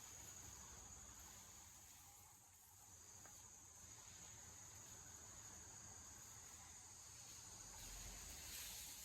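Near silence with a faint, steady high-pitched chirring of insects, a little louder near the end.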